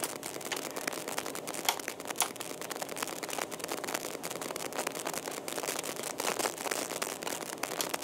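Light crinkling and a quick run of small, irregular clicks from hands handling computer parts on a motherboard resting on its plastic anti-static bag.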